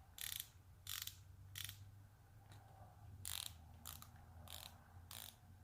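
Capri 120-tooth reversible ratcheting wrench being worked back and forth, its fine-toothed ratchet giving a soft, quiet buzz on about eight short strokes.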